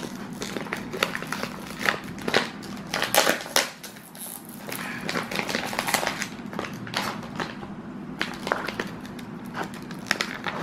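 Clear plastic snack bag of dried fruit crinkling and crackling as it is handled, shaken and pulled open, in irregular sharp crackles.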